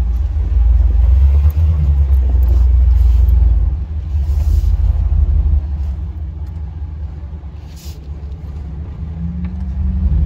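Jeep engine running under load through soft sand, heard from inside the vehicle as a deep rumble. It pulls harder for the first few seconds, eases off, then revs up again near the end.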